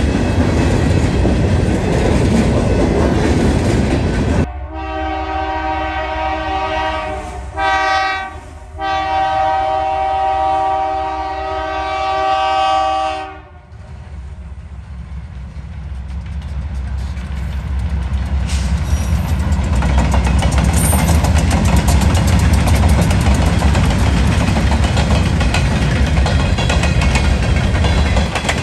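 Freight cars rolling past with a heavy rumble and clickety-clack. A few seconds in, a diesel locomotive's multi-chime air horn sounds two long blasts with a short gap between them. Then the train's rumble builds steadily louder as it passes.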